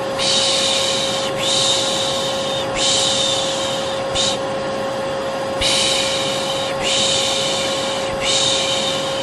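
Vacuum cleaner running with a steady hum, overlaid by a person's soothing 'shh' shushing, repeated about once a second with a short break midway.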